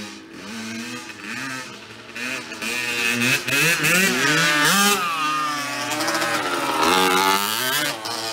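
Small dirt bike engines revving up and down as kids ride laps. The sound is fainter at first and loudest from about three seconds in, with quick rising revs as a bike passes close.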